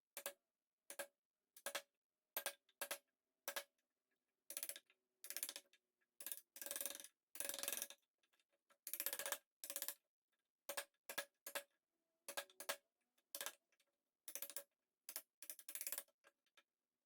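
A series of sharp knocks on wood at an uneven pace, about one or two a second, each with a short ring, typical of hand-tool joinery work such as striking a chisel. A run of longer, rasping strokes comes between about five and ten seconds in.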